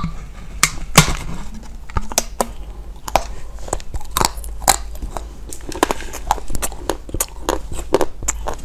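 Crunchy biting and chewing of a hollow pink peach-shaped treat: an irregular run of sharp cracks and crunches.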